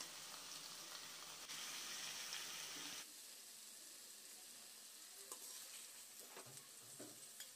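Faint sizzling of chicken sukka in oil in a hot kadai, the stove just switched off. It drops away about three seconds in, followed by a few light scrapes and taps of a serving spoon in the pan.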